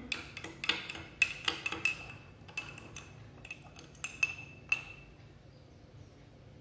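Steel spoon stirring a milk drink in a drinking glass, clinking repeatedly against the glass with a light ring, about two or three clinks a second. The clinks stop about five seconds in.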